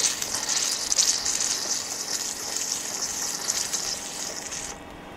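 Compressed air and water hissing and sputtering out of an open RV low-point drain line, driven by a Lippert Floë drain-down system's small 12-volt compressor. The hiss fades slowly, then cuts off suddenly near the end, with a faint steady hum underneath.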